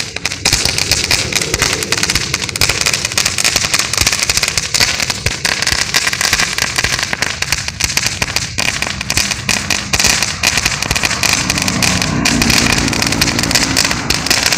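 Little Shark crackle-bomb ground firework crackling steadily, a dense, unbroken stream of small sharp pops as it spits sparks.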